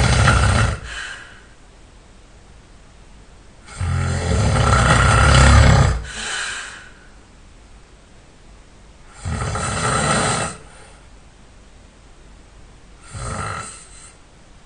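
A person snoring loud and hard, four snores about four seconds apart, each lasting one to two seconds with quiet breathing gaps between. The last snore is weaker.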